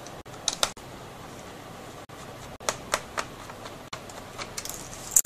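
Light, sharp clicks and taps of a screwdriver and a small screw against a laptop's plastic screen bezel: a pair about half a second in, three more around the middle, and a quick cluster near the end.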